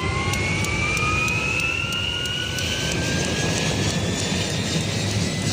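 An engine running with a high whine that slowly rises in pitch over a steady low rumble.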